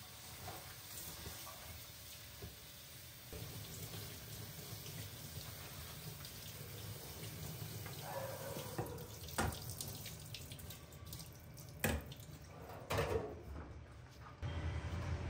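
Kitchen faucet running onto spinach leaves being rinsed in a colander in the sink, with a few sharp knocks in the second half.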